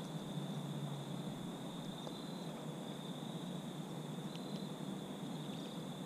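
Steady insect chorus: a continuous high-pitched trill over a low, even background hum and hiss, with a few faint ticks about four seconds in.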